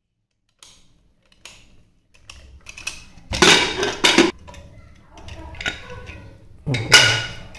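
Aluminium pressure cooker being opened: the lid is twisted free and lifted off, with a few light clicks and then three bursts of metal scraping and clanking, the last near the end.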